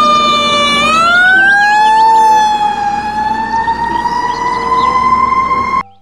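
Fire truck siren wailing loudly over the truck's engine rumble as it drives past. Its pitch dips slightly, then slides up over a couple of seconds and holds high before cutting off suddenly near the end.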